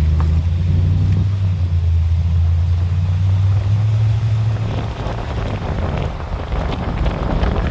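2008 Toyota Tundra pickup on the move: a strong low drone that steps up a little in pitch about three and a half seconds in, then gives way to rougher road and wind noise. No clear high screech stands out.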